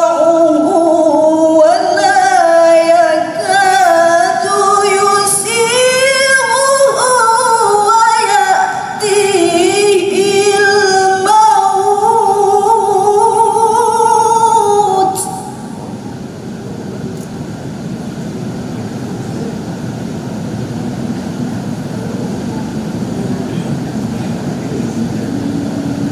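A woman's melodic Quran recitation (tilawah) into a microphone, long held phrases gliding up and down in pitch, ending on a drawn-out note about fifteen seconds in. After that only a steady, quieter background hum of the hall remains.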